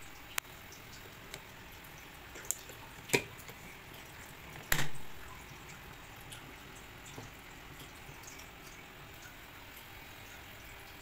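Handling of a plastic water bottle's flip-top lid and spout: a few sharp plastic clicks and taps, the loudest about three seconds in and just before five seconds in, then a couple of faint ticks.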